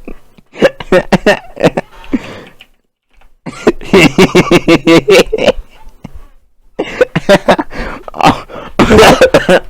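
A man laughing hard in three fits, each a rapid string of breathy, voiced pulses, with short pauses for breath between them.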